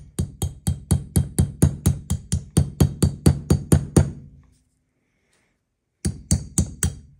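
Hammer tapping a new bearing race down into a Corvette front wheel hub: about four sharp metallic blows a second for some four seconds, then a pause and four more blows near the end. The race is being driven down where it sits cocked, high on one side.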